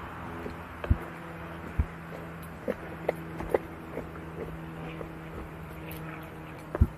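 Traqpod board's wheels rolling along a concrete sidewalk: a steady low hum broken by irregular sharp clacks as the wheels cross the slab joints, the loudest near the end.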